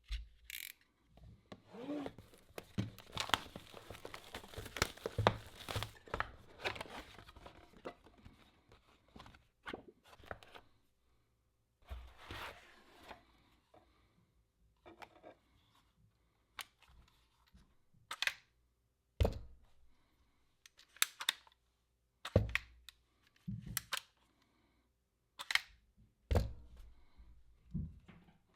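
Unboxing an Ulanzi TT38 tabletop tripod: packaging rustling and tearing for several seconds, then scattered sharp clicks and knocks as the box and tripod are handled.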